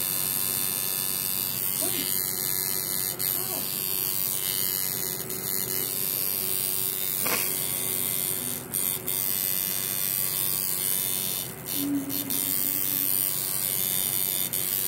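Electric tattoo machine running steadily with a continuous hum as its needle works ink into the skin.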